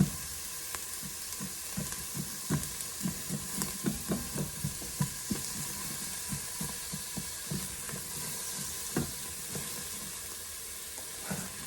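Onions and garlic sizzling in olive oil in an Instant Pot on sauté, with a steady hiss. A utensil knocks and scrapes against the pot again and again as the onions are stirred and broken up.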